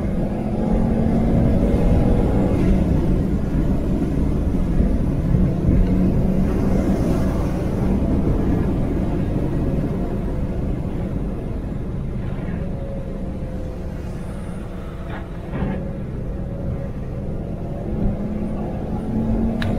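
Turbocharged five-cylinder engine of a Volvo C70 T5 running under load at steady speed, heard inside the cabin, over the hiss of tyres on a wet track. The engine note breaks briefly about fifteen seconds in, then picks up again.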